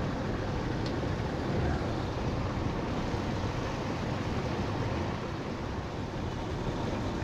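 Steady outdoor ambience: a low rumble with an even hiss over it, and a faint tick about a second in.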